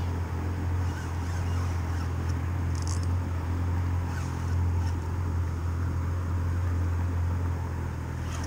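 A steady low engine drone that holds level throughout, with a few faint brief clicks about three seconds in.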